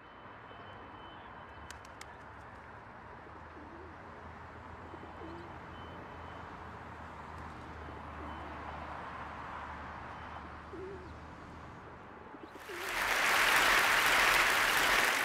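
Pigeons cooing a few times over a steady low city rumble. Near the end, loud applause breaks in and then stops abruptly.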